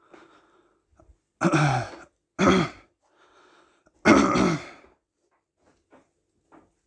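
A man clearing his throat three times, loud and short, with a breath between; he has a dry mouth.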